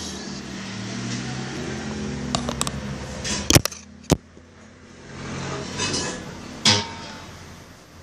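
Handling noise as a phone camera is moved and set up, with a few sharp knocks and clicks (the loudest about three and a half seconds in) and rustling, over a low steady hum that fades about three seconds in.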